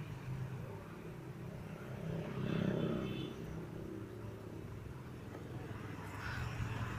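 Low rumble of a motor vehicle passing out of sight, swelling about two to three seconds in and again faintly near the end.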